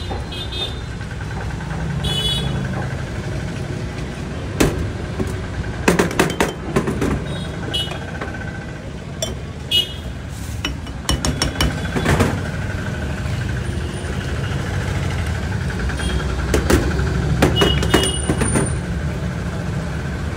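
Glass and ice clinking and knocking as kulukki sarbath is shaken in a hand-held glass shaker and handled at the counter, in clusters of sharp clinks about six, eleven and seventeen seconds in. A steady low hum runs underneath.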